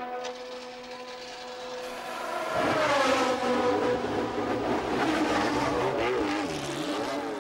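Wolf WR1 Formula One car's Cosworth DFV V8 revving in the pits. After a quieter first two seconds it comes in loudly about two and a half seconds in, its pitch rising and falling several times with the throttle.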